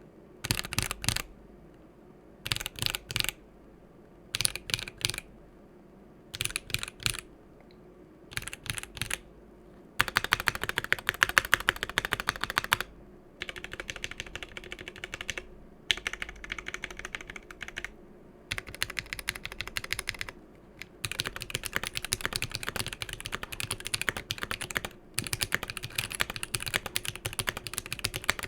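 Typing on a GMMK Pro keyboard with an aluminium plate, Glorious Fox switches and GMK Laser keycaps. There are short bursts of a few keystrokes about every two seconds for the first ten seconds, then fast continuous typing with brief pauses.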